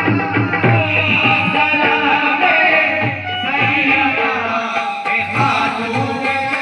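Qawwali: a male lead singer with chorus, accompanied by harmoniums and tabla.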